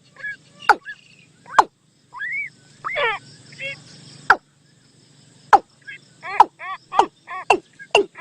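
Bird decoy call track for the bird known in Thai as nok toom: sharp falling chirps and short arched notes, scattered at first and coming in a quick series of several a second over the last three seconds.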